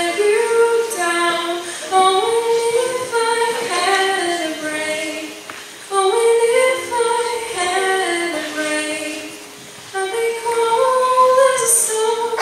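A woman singing a slow melody through a microphone, in phrases that step up and down in pitch with short breaths between them.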